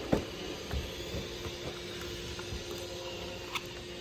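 A few light clicks and knocks of small plastic parts being handled, the Braava robot mop's battery pack being fitted into place, over a steady background hiss.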